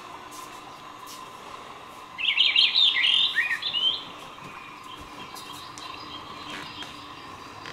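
A bird chirping in a quick run of high notes for about two seconds, starting about two seconds in, over a faint steady high whine.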